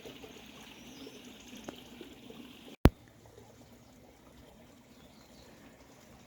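Water trickling faintly along a hand-dug drainage ditch. A single sharp click about three seconds in, after which the trickle is quieter.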